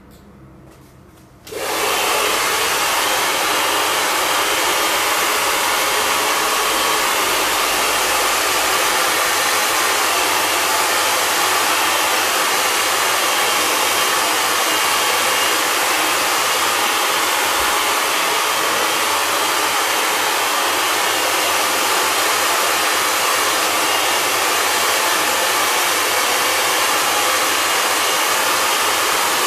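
Handheld hair dryer switched on about a second and a half in, then running steadily with a loud, even blowing rush, drying a freshly spray-chromed part.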